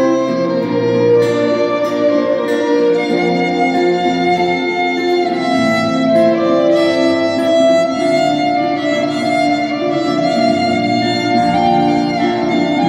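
Violin playing a slow melody in long held notes over acoustic guitar accompaniment, in an instrumental passage without singing.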